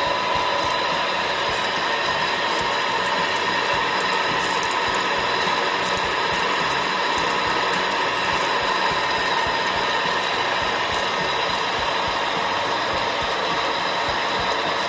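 Large twist drill boring into a solid aluminium block on a milling machine: a steady machining tone with scattered ticks as the chips break off.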